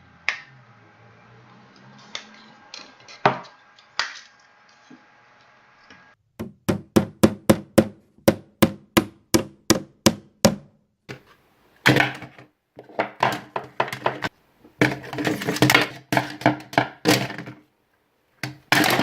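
Hard blows, like a hammer, striking a computer mouse on a hard surface. A few light clicks come first, then about six seconds in a fast run of blows at about four a second, followed by further bursts of blows with short pauses between them.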